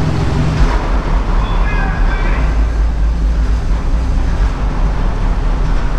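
Bass-heavy music played loud through a car audio system, powered by a repaired Kenwood amplifier driving a subwoofer; a deeper bass note comes in under a second in and dominates, with a faint vocal or melody above it.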